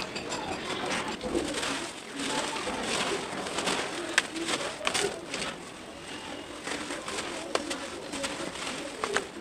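Hands crumbling and squeezing dry red dirt in a plastic tub: soft crunching and falling soil, with scattered sharp little cracks. Pigeons coo in the background.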